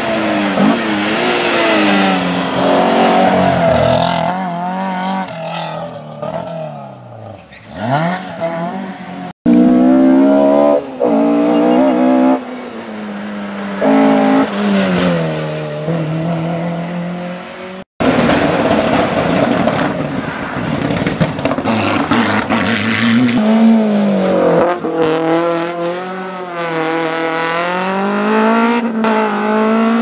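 Rally car engines revving hard at full throttle as cars race past one after another, the pitch climbing and dropping again and again through gear changes and lifts. The sound cuts abruptly to a new car twice, about nine and eighteen seconds in.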